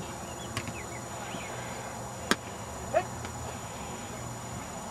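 Open-air background noise with a steady low rumble and hiss. Three short sharp clicks cut through it, the loudest about two seconds in.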